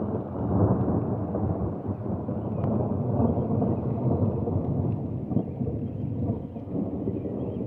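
A long, continuous rumble of thunder from a storm overhead. It builds just before and carries on unbroken, deep and heavy throughout.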